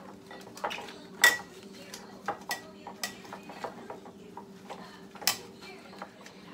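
Kitchen tongs clinking and scraping against a glass bowl while tossing zucchini slices in egg white, in irregular clinks with two sharper ones about a second in and about five seconds in.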